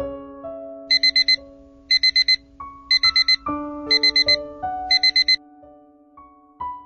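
Electronic alarm beeping in rapid bursts of four, one burst a second, five times, over soft piano music.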